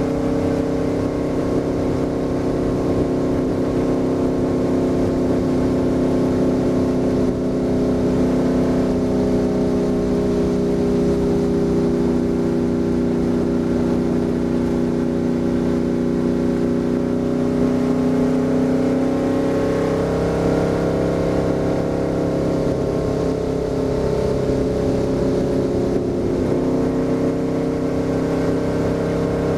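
V8 stock car engine running hard at speed, heard from inside the cockpit. The engine note sags slightly through the turn about a third of the way in and climbs again as the car accelerates onto the straight.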